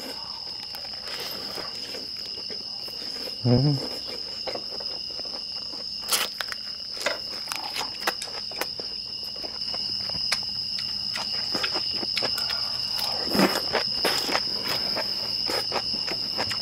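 Night insects trilling steadily in two high, unbroken tones, under close-up chewing and crunching of lettuce-wrapped bulgogi. Two brief voiced murmurs cut in, about three and a half seconds in and again near thirteen seconds.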